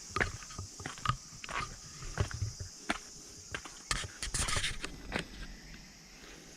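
Irregular crunching and scraping steps on rough ground, with one longer scrape about four seconds in and a steady high hiss behind.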